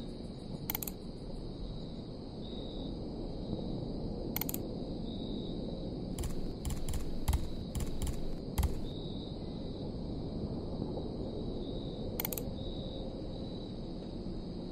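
Computer mouse clicking: a single click, another a few seconds later, then a quick run of about six clicks, and one more near the end, over a steady low hum.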